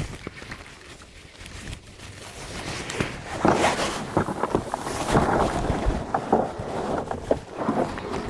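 Knocks and splashing around a kayak, irregular and louder from about three seconds in, over wind noise on the microphone.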